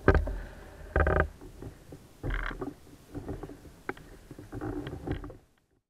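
Oars of an inflatable rowing boat creaking and knocking in their oarlocks, about one stroke a second, cutting off suddenly near the end.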